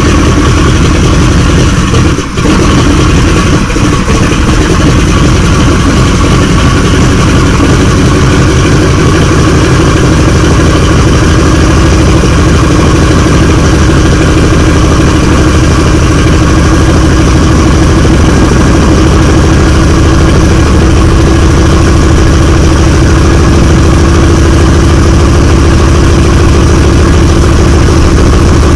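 Wright R-1820 Cyclone radial engines of a Boeing B-17 Flying Fortress running at idle just after start-up. The sound is loud and steady, with a brief dip in level a little over two seconds in.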